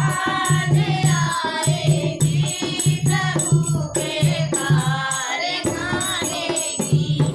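A group singing a Hindi devotional bhajan together, with a regular drum beat about twice a second and bright jingling percussion keeping time.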